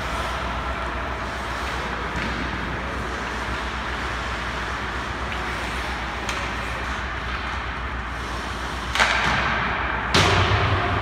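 Steady hockey-rink background noise with a few faint knocks. Near the end come two loud, sharp cracks about a second apart, the second with a ringing tail: hard impacts from hockey practice on the ice.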